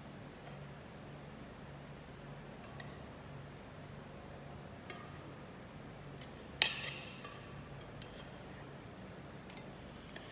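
A few scattered clicks and clinks of kitchen utensils being handled, with one sharp ringing clink about six and a half seconds in, over a faint steady hum.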